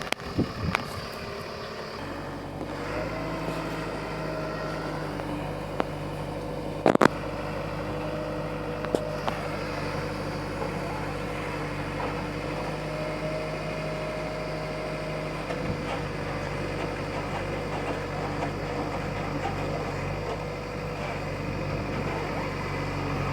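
Backhoe loader's diesel engine running steadily, its note settling in about two seconds in, with one sharp knock about seven seconds in and a few lighter clicks.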